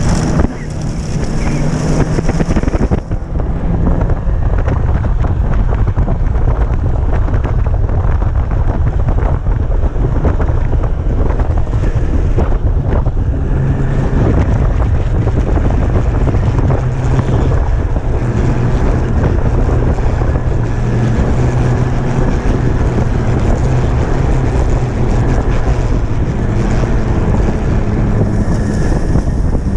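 Snowmobile engine running steadily at riding speed, heard from on board the sled, with heavy wind buffeting the microphone. The engine note steps up and down a little now and then.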